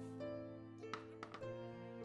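Soft instrumental background music with held notes that change slowly. A few light taps come about a second in.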